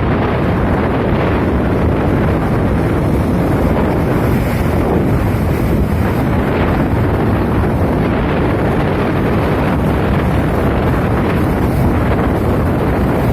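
Strong wind blowing across the microphone, a steady loud rush heaviest in the low end, with sea surf beneath it.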